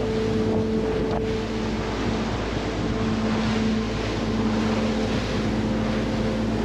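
Motorboat running at speed with a steady engine tone, water rushing and spraying off the hull, and wind buffeting the microphone.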